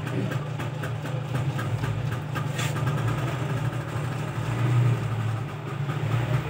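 Steady low engine-like hum, with fast even ticking over it that fades out about halfway through.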